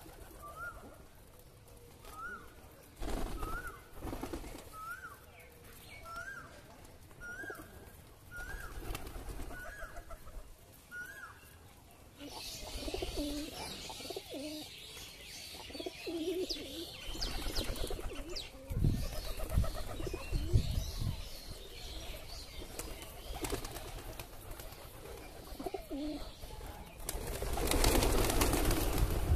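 Domestic pigeons cooing as the flock feeds, with another bird repeating a short rising note about ten times in the first ten seconds. Near the end comes a loud burst of wing flapping as the flock takes off.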